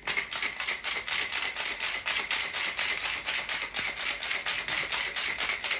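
Ice rattling inside a glass cocktail shaker with a metal top, shaken hard in a fast, steady rhythm of about six knocks a second.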